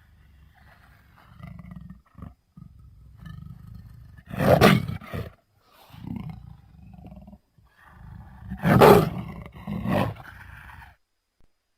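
Big cat roar sound effects: low growls through most of the stretch, with two loud roars about four and a half and nine seconds in, and a shorter roar just after the second.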